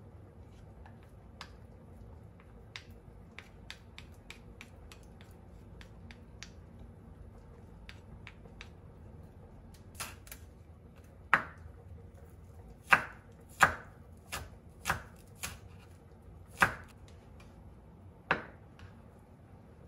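Kitchen food preparation with utensils on a counter: light clicks and scrapes for the first half, then about eight sharp, hard knocks at uneven intervals.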